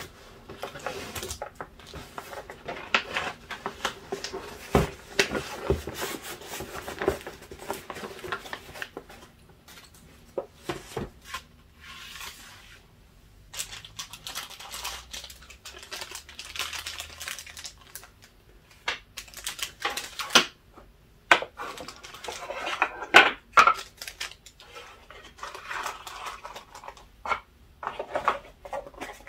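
Hands handling paper packaging on a desk: earring cards, kraft paper envelopes and small cardboard boxes rustling, sliding and tapping in irregular clicks and rustles, with a quieter patch near the middle and busier handling later on.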